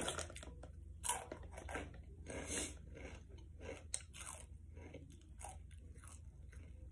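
A person chewing crunchy snack chips: a run of irregular crunches, a few sharper than the rest.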